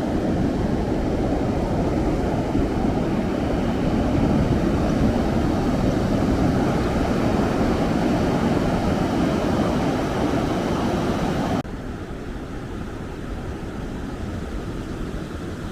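Steady low rumbling beach ambience of surf and wind, which drops abruptly to a quieter level about twelve seconds in.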